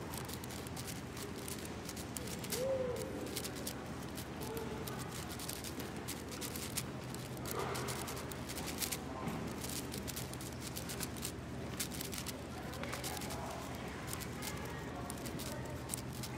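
AoShi WRM 6x6 speedcube being turned fast by hand: a continuous run of light plastic clicks and clacks as its layers snap around, with voices chattering faintly in the background.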